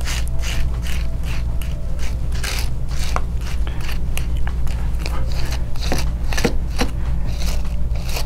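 Wire-pin slicker brush raking through a puppy's coat in quick repeated scratchy strokes, about two or three a second, over a steady low hum.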